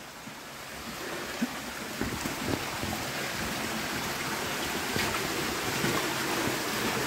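Steady rush of running water that grows louder over the first few seconds, with a few splashing steps of wellington boots wading through shallow water.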